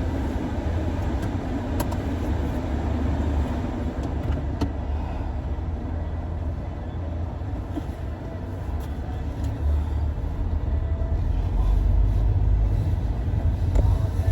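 Car cabin noise while driving: a steady low rumble of engine and road with an even hiss over it, getting somewhat louder toward the end.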